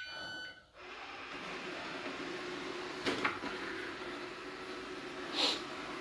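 Cecotec Conga Excellence 990 robot vacuum running with its motor turned down as it drives across a wooden floor, homing on its charging base: a steady motor hum with two brief louder swishes, about three seconds and five and a half seconds in. A short run of electronic beeps ends about half a second in.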